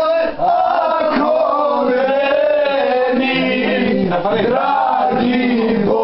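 A group of mostly male voices singing a song together loudly, with a brief break about half a second in.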